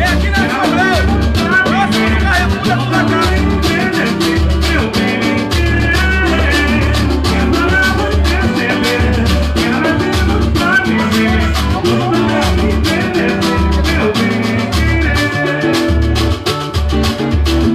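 Band music with a fast, busy percussion beat, a stepping bass line and melodic instruments.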